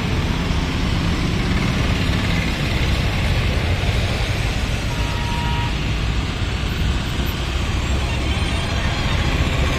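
Heavy mixed highway traffic passing close by: lorries, dumper trucks, a bus, three-wheelers and motorcycles, a continuous engine and tyre rumble that stays steady throughout.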